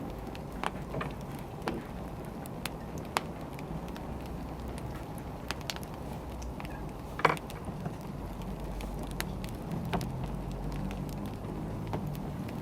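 Wood fire crackling: scattered sharp pops and snaps over a steady low rumble, with one louder pop about seven seconds in.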